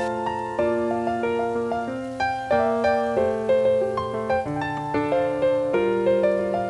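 Background piano music: a melody of single struck notes over held lower notes.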